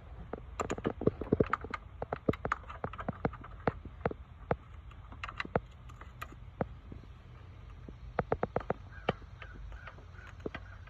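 Hand tools clicking and tapping on metal in irregular clusters of small sharp clicks while the thermostat housing is unbolted, over a faint steady low hum.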